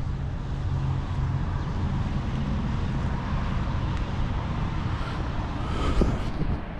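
Steady low hum of a motor vehicle engine idling, with a single thump of a finger handling the body camera about six seconds in.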